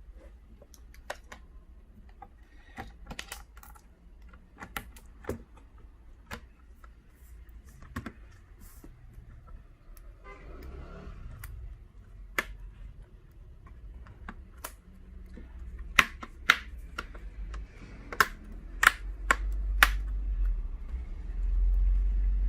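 Irregular sharp plastic clicks and taps from a laptop's case and screen bezel being handled and pressed together, with a cluster of louder clicks in the second half. A low rumble comes in near the end.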